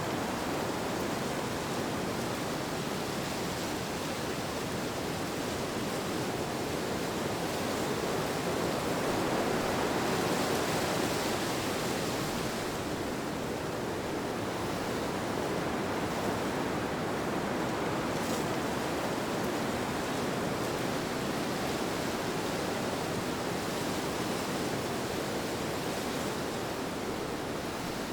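Steady rushing wind, an even hiss with a gentle swell about ten seconds in.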